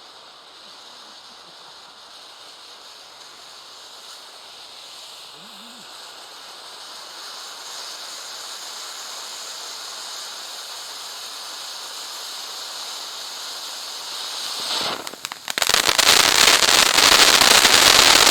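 Small crackling ground firework fountain (Lesli 'Crackling Fire' volcano) burning. A hiss slowly builds, then about three-quarters of the way in it breaks into a loud, dense crackling of many rapid tiny pops.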